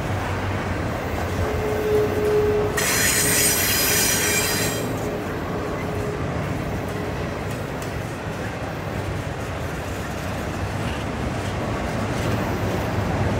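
Freight train's double-stack well cars rolling past on a curve, a steady rumble of wheels on rail. About three seconds in, a high-pitched wheel squeal from the curve rises for about two seconds and then fades.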